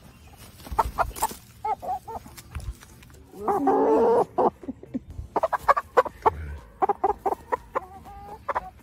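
Chicken clucking in short repeated calls while it is held and restrained for wing clipping. About three and a half seconds in comes one longer, louder call.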